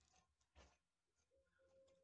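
Near silence, with a few faint snips of scissors cutting through white net mesh, the clearest about half a second in, and a faint steady hum from about one and a half seconds in.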